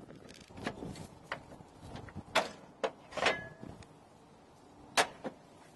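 Metal clinks and knocks as the brake pulley is worked loose and lifted off the mower deck's blade spindle, several sharp ones in the middle and a loud single clink near the end. One clink rings briefly, like metal on metal.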